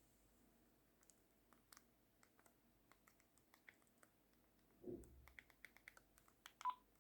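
Faint, irregular clicks of keys being pressed on a phone, with a soft low thump about five seconds in and a short beep near the end.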